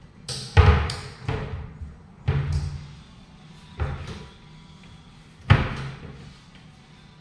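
Wall-mounted modular cabinet doors on concealed hinges being opened and pushed shut by hand: about six knocks and thuds spread over several seconds, the loudest about half a second in.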